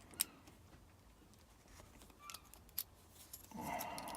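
Small sharp metallic clicks and taps from a tool working at the retaining clip on a GEGE lock cylinder, the sharpest just after the start and a few lighter ones later, with a brief low hum near the end.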